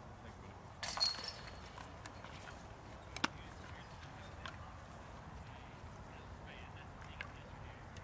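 A disc golf putt striking the chains of a disc golf basket: a short, bright metallic jangle of chains about a second in, followed a couple of seconds later by a single sharp click.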